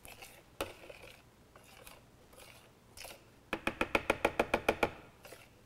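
Metal spoon scraping down the sides of a plastic food processor bowl: a few scattered scrapes and clicks, then a quick rattling run of about a dozen sharp clicks, roughly ten a second, a little past the middle.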